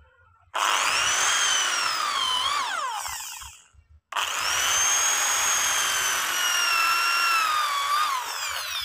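Electric drill with a spiral auger bit boring into a timber beam to rough out a mortise, in two runs. It starts about half a second in and runs for about three seconds, then stops briefly. It starts again and runs until near the end, its whine dipping and falling each time the drill slows to a stop.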